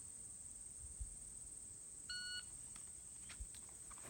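A shot timer's start beep: one short electronic tone about two seconds in, signalling the draw.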